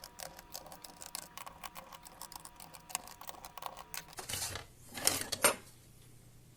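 A rapid run of small clicks and taps from objects being handled, over a faint steady tone. It is followed by two short, louder sliding or scraping noises about four and five seconds in.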